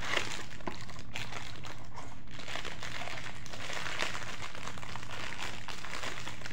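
Plastic wrapping and a small cardboard box crinkling and rustling as a headlamp relay is unpacked by hand.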